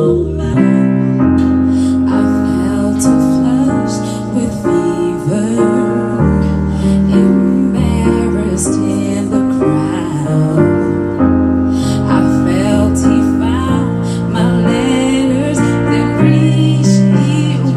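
Live female vocals singing over an electric keyboard playing held chords with bass notes underneath.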